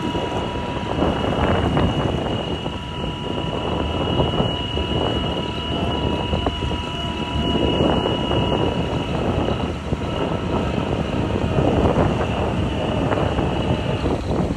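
Steady motor drone mixed with rushing wind noise that swells and eases every few seconds.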